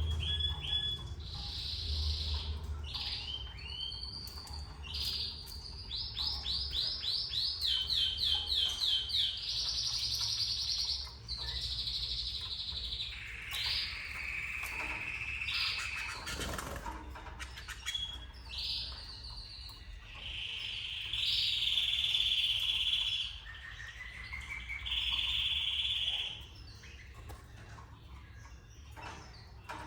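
Domestic canary singing a long, varied song of quick repeated trills and rolling phrases, with a low steady hum underneath; the song thins out near the end.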